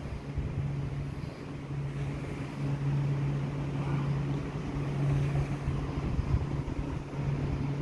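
Steady low drone of a train standing at the station, with gusts of wind on the microphone.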